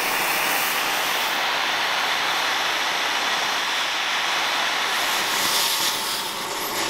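Oxy-acetylene cutting torch blasting out a frame rivet: a steady, loud hiss of the cutting jet, shifting a little near the end.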